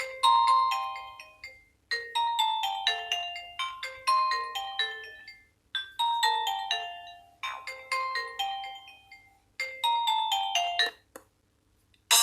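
Nokia X1-01 ringtone: a melody of short, quickly fading notes repeating in phrases of about two seconds, cut off about eleven seconds in. After a second's silence a different, busier ringtone starts at the very end.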